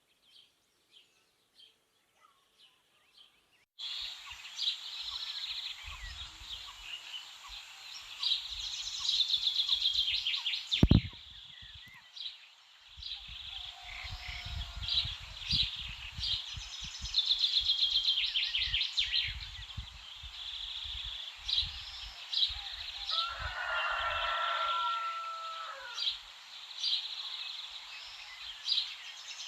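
Dawn chorus of songbirds: at first a few faint, scattered chirps, then about four seconds in a much louder mix of several birds with rapid repeated trills. Low gusts of wind buffet the microphone under the song, and there is one sharp click near the middle.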